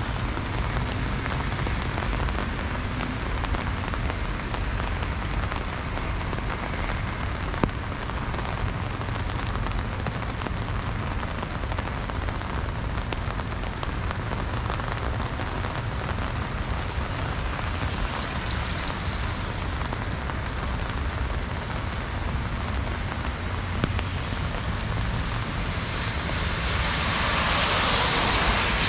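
Heavy rain falling steadily, with a low rumble underneath and two brief sharp ticks. Near the end a louder rushing hiss swells up.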